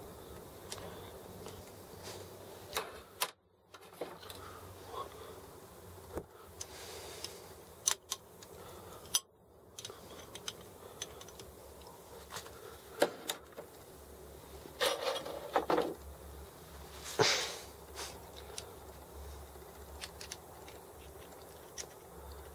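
Small metal clicks and clinks of hand tools on the parts of a Sturmey-Archer S5C internal gear hub: circlip pliers and a small spanner working at the axle end. The clinks are scattered and irregular, a few louder ones come in the second half, and the sound drops out briefly twice early on.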